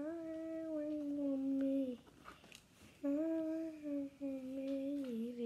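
A girl singing long, held notes on a nearly steady pitch: one about two seconds long, then after a short break two more, the last dipping lower near the end.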